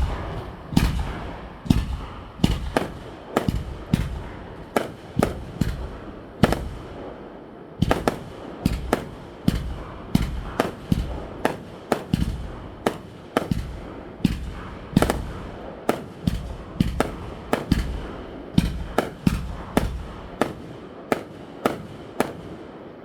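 Aerial firework shells bursting in rapid succession, a long string of sharp bangs about two a second, each with a short echo. The barrage stops shortly before the end.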